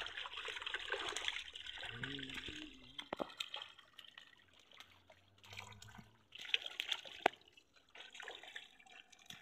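Water splashing and sloshing as a netful of small silvery fish thrash in shallow pond water. The splashing is busiest at the start and again about seven seconds in.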